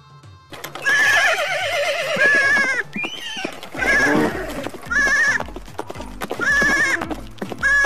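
A series of bleating animal calls, each wavering in pitch. A low music beat comes in about halfway through.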